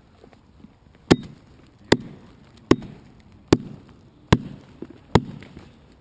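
Axe chopping into a fallen birch log: six sharp blows, evenly spaced a little under a second apart, starting about a second in.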